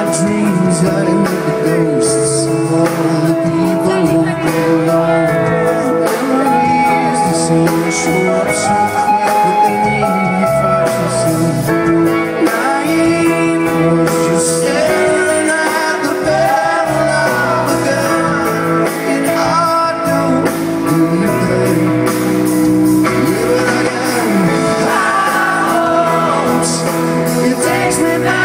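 A live rock band playing: a male lead vocal sung over keyboard, electric guitars and drums, continuous throughout.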